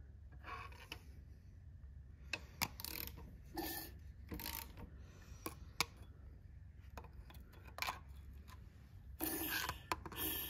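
Faint rubbing and scraping, with a few sharp clicks, from handling and a tool working close to an engine's open bottom end, over a low steady hum.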